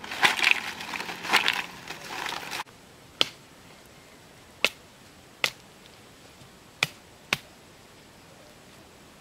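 A bundle of long green leaves rustling as it is handled for the first couple of seconds. Then a small campfire of sticks and bamboo gives five sharp, irregular pops over a faint hiss.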